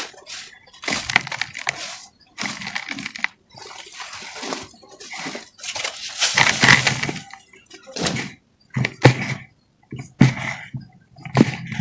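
Dry red dirt crumbled and squeezed by hand in a container: irregular bursts of gritty crunching and powdery trickling, with a few sharper cracks of clods breaking near the end.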